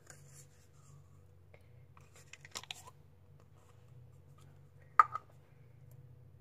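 Handling of a plastic slime container: a short cluster of clicks and rustles about two and a half seconds in, then one sharp click about five seconds in, over a low steady hum.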